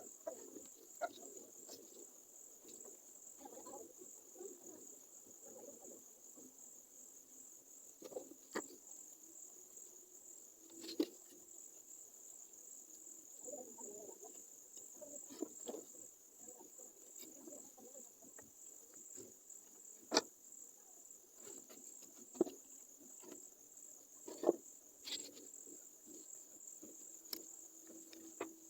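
Steady high-pitched chirring of crickets, with scattered sharp clicks and light knocks throughout.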